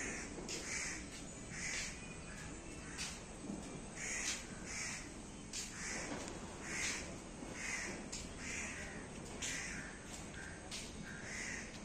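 Crows cawing over and over, roughly once a second.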